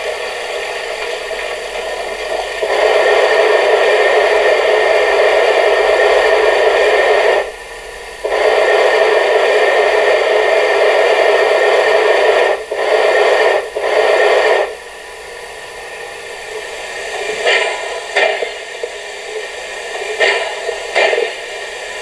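Sound module of a KISS large-scale model of the Harz Br 99.23 steam locomotive playing recorded steam hissing through its small loudspeaker. The hiss starts about three seconds in, breaks off briefly twice and stops after about fifteen seconds. A few short puffs follow near the end.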